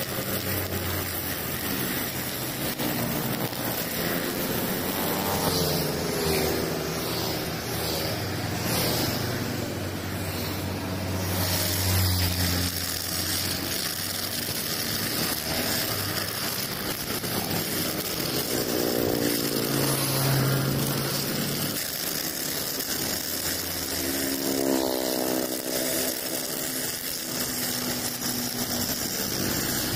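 Four-stroke brush cutter with a Honda GX engine running under throttle, its nylon trimmer line cutting short grass. The engine pitch rises and falls several times as the throttle is eased off and opened again.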